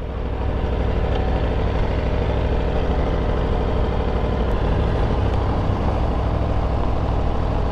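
Aprilia RSV4 RR's V4 engine running steadily at low revs, with an even, unchanging note.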